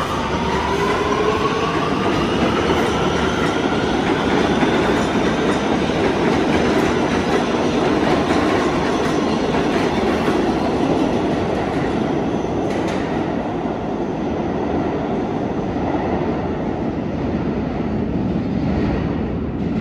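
New York City subway train pulling away, its motor whine rising in pitch over the first few seconds, then a steady rumble of wheels on rail that eases slightly near the end.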